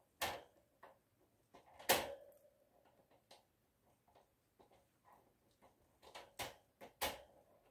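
A few sharp clicks and knocks against a quiet background, the loudest about two seconds in with a short ringing tail, then two more close together near the end: the puppies' wire crate rattling as they shift against the bars.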